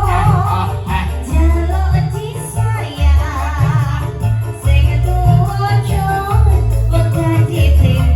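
Live band music with a heavy bass-and-drum beat and a wavering lead melody line.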